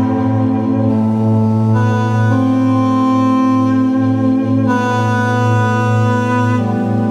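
Instrumental background music of long held chords that change every couple of seconds.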